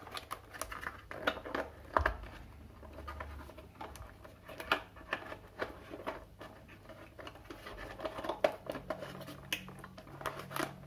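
Hands handling a plastic toy-packaging tray with the figures tied on by wire twist-ties: irregular scratching, clicks and light taps.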